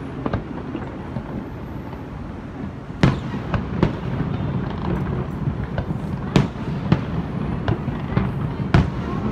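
Aerial fireworks display going off: irregular sharp bangs over a steady low din, getting louder and busier about three seconds in.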